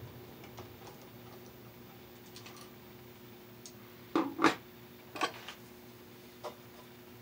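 Hand tools (wire strippers and pliers) clicking and clacking as they work on electrical wire. A pair of sharp clicks comes about four seconds in and another a second later, with a few faint ticks between, over a faint steady hum.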